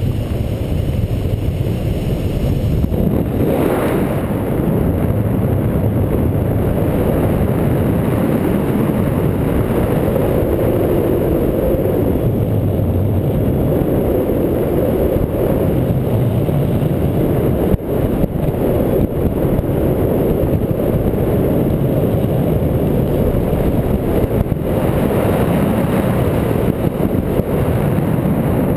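Airflow buffeting the microphone of a paramotor trike gliding with its engine cut off: a loud, steady, low rumble of wind noise.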